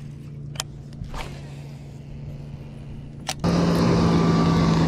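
Steady low motor hum with a few sharp clicks. About three and a half seconds in, the hum suddenly gets louder and a little higher, with a rush of noise added.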